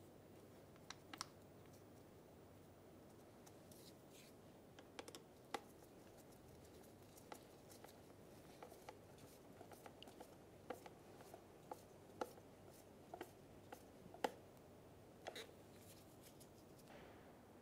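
Faint, scattered clicks and small ticks of a Phillips screwdriver turning small screws into a blower motor's plastic cover, with the plastic housing being handled; the sharpest click comes about three-quarters of the way through.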